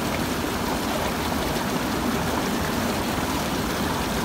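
Fast mountain stream with a strong current rushing over rocks in whitewater rapids, a steady, even rush of water.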